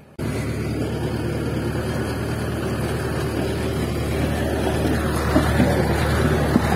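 A steady, low engine rumble cuts in suddenly just after the start and runs on, growing slightly louder, with a few light knocks near the end.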